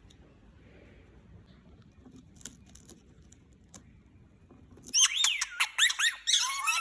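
Indian ringneck parakeet calling: loud, rapid chattering squawks and whistles sweeping up and down in pitch, starting suddenly about five seconds in after a quiet stretch with a few faint clicks.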